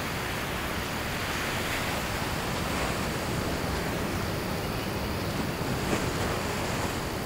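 Steady wash of ocean surf, with some wind.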